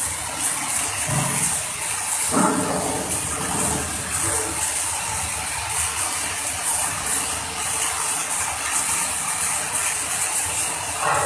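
Electric arc welding: the arc's steady crackling hiss, briefly louder about two seconds in.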